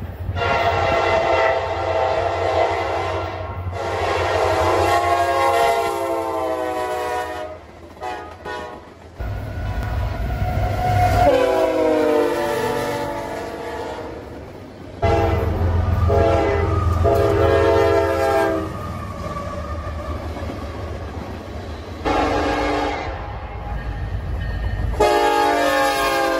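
Diesel freight locomotive air horns sounding a series of loud, chord-like blasts, several seconds each, over the low rumble of the locomotives' engines. In one blast around the middle the horn's pitch slides down as the locomotive passes.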